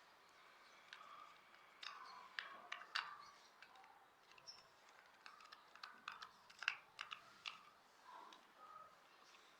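Faint, irregular clicks and taps of small hard objects being handled, a few louder ones bunched together about two to three seconds in and again near seven seconds, over near silence.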